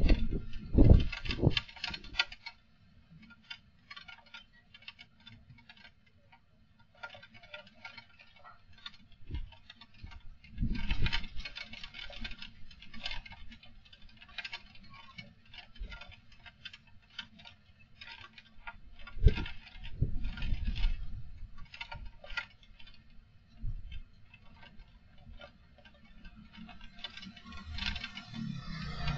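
Strong wind gusting against a CCTV camera's microphone, with low rumbling surges several times and irregular rattling and clicking throughout.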